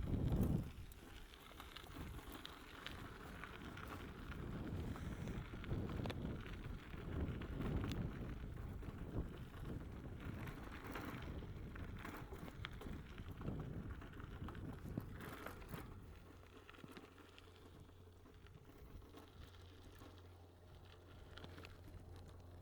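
Bicycle being ridden over rough ground: irregular tyre and frame rattle with wind on the microphone, dying down about sixteen seconds in to a quieter stretch with a faint steady low hum.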